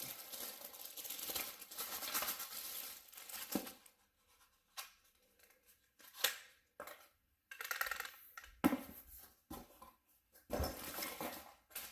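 Packaging rustling and tearing as vacuum accessories are unwrapped. From about four seconds in it gives way to scattered separate clicks and knocks.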